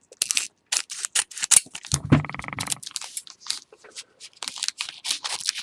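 Trading cards and pack wrappers being handled: a run of short, crisp scraping and clicking strokes as cards are slid and flipped. There is a brief low hum about two seconds in.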